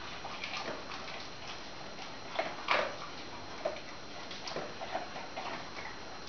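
Dog crunching dry cat kibble picked up off a tiled floor: irregular short crunches and clicks, the loudest cluster about two and a half seconds in.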